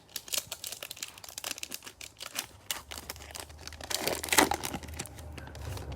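Crinkling and tearing of a trading-card pack wrapper being handled and opened: a run of sharp crackles, loudest a little after four seconds in.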